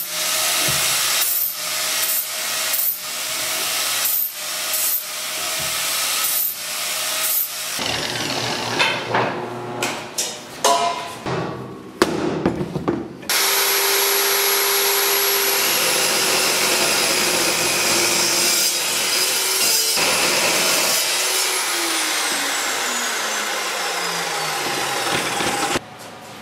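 Angle grinder grinding a steel tube in a series of short passes, then clanks of steel being handled, then a DeWalt chop saw running steadily and cutting steel tube, its blade pitch sliding down as it winds down near the end.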